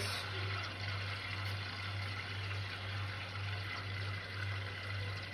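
Steady low hum with a faint, even hiss underneath.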